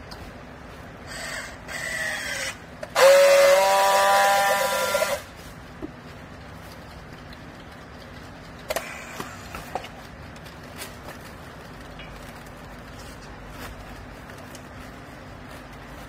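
Handheld electric strapping tool working on plastic strapping around a bale. It makes a short motor whine that drops in pitch, then a louder steady whine for about two seconds. A few sharp clicks follow around the middle.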